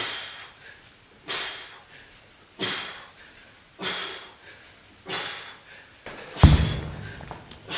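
Five sharp breaths out, one with each kettlebell swing, about one every 1.3 seconds. About six and a half seconds in comes a heavy thud as the kettlebell is set down on the rubber gym floor.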